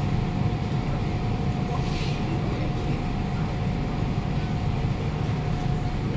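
Cabin noise inside a Siemens C651 metro train pulling into a station and coming to a stop: a steady rumble with a thin, steady tone that cuts off near the end.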